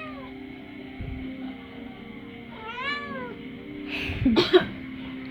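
A cat meowing once about three seconds in, a short rising-then-falling call, over a steady background of music or hum. A loud, noisy scuffing burst follows near the end.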